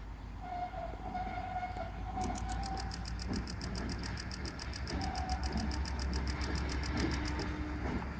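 A GP38-2 diesel locomotive drawing slowly closer, its engine a low rumble that grows louder over the last few seconds. A faint held tone sounds during the first few seconds, and a fast, high-pitched repeated ringing of about seven beats a second runs from about two seconds in until just before the end.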